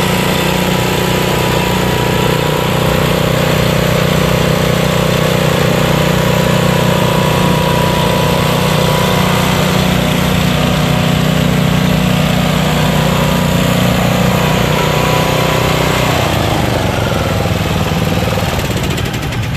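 Walk-behind brush mower's gasoline engine running steadily and loudly while the machine is driven and steered. About 16 s in the engine note eases off.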